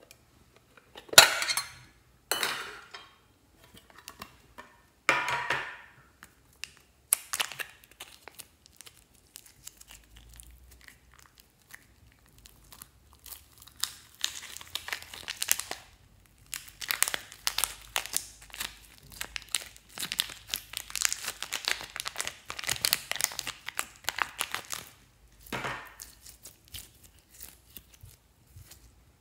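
Clear slime being stretched, squeezed and folded by hand, giving dense, rapid sticky crackling and popping clicks that swell and fade as it is worked. In the first few seconds there are three loud, sharp handling sounds.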